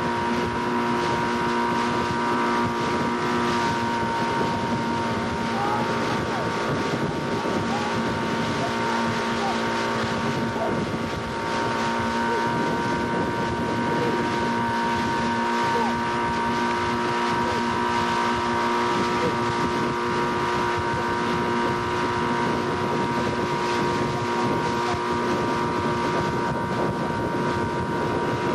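Motorboat engine running at a steady pace with an even, unchanging drone, with wind rushing over the microphone.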